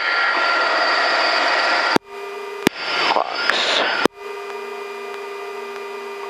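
Cockpit noise of an S-64 Skycrane helicopter sitting on the pad just after touchdown: a loud, even rush with faint steady whines. It cuts off abruptly about two seconds in, comes back briefly, and at about four seconds drops to a quieter steady hum with several steady tones.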